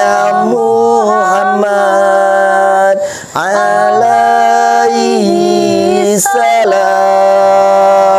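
Wordless chant-like singing in long held notes, several pitches sounding together, with short breaks about three seconds in and again near seven seconds.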